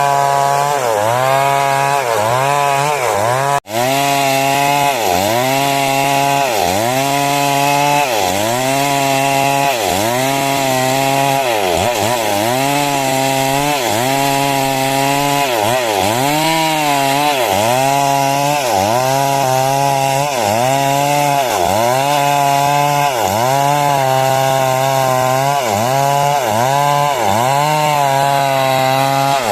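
A 382 chainsaw running near full throttle while cutting wood, its engine pitch sagging and recovering a little under once a second as the chain bites and clears. The sound cuts out for an instant about four seconds in.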